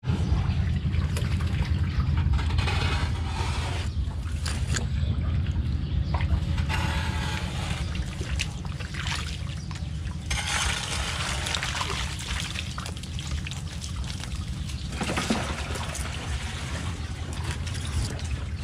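Shallow muddy pond water splashing and trickling as hands and stranded fish stir it, over a steady low rumble.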